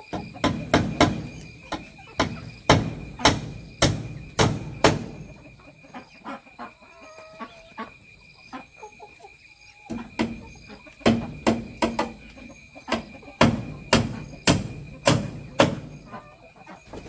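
Claw hammer driving nails into thin wooden slats: a quick run of sharp blows lasting about five seconds, a few seconds of lighter knocks, then a second run of blows.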